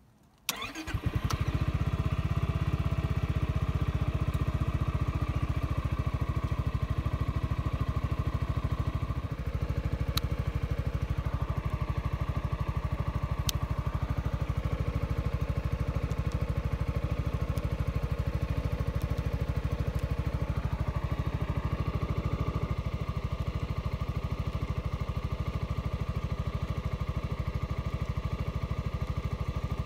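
Yamaha X-MAX 300 scooter's single-cylinder four-stroke engine, fitted with an Akrapovic titanium slip-on exhaust, starting up about half a second in and then running at a steady idle of about 1,500–1,700 rpm.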